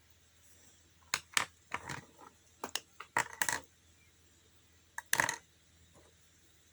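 A pen writing on a notebook page: short scratches and taps in several quick clusters, with pauses between them.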